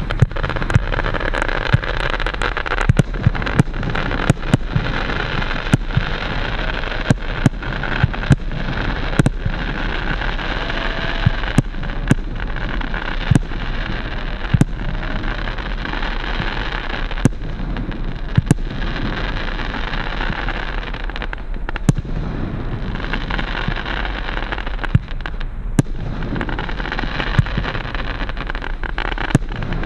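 Heron PSP 1-22 category F2 fireworks battery firing: a quick, irregular run of sharp reports from launching shots and bursting stars over a continuous noisy crackle, with no gaps.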